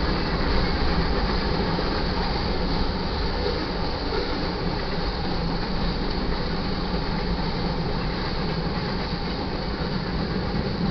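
Freight cars of a manifest train rolling past at a grade crossing: a steady, unbroken noise of steel wheels running on the rails.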